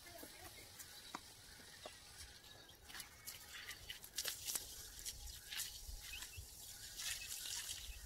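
Faint water from a garden hose pattering and splashing onto bare soil, the irregular splashes setting in a few seconds in.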